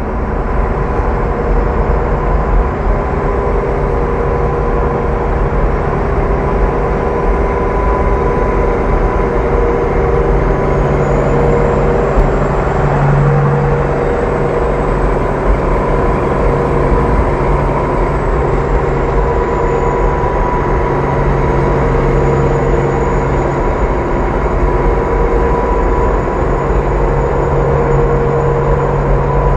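Steady highway driving noise from a moving car: tyre and road rumble with an even engine drone and a faint steady whine, unchanging throughout.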